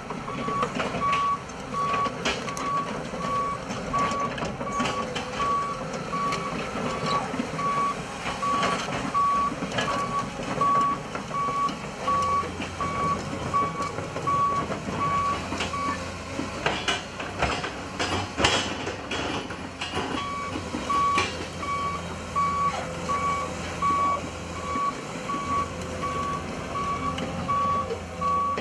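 Komatsu PC220LC-6LE hydraulic excavator running with its warning alarm beeping in a steady high pulse, about three beeps every two seconds. The beeping breaks off for a few seconds partway through, while metallic clanks sound over the diesel engine and hydraulic noise. A deeper steady hum comes in about halfway through.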